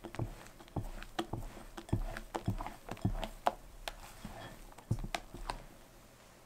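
Rubber spatula folding thick chiffon cake batter in a glass bowl: irregular soft taps, scrapes and squelches against the glass as meringue is folded in and the sides are scraped clean. It stops about five and a half seconds in.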